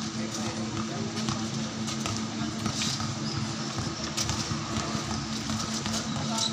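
Basketball game on a concrete court: scattered knocks of the ball and players' feet, with brief high shoe squeaks, over a steady low hum.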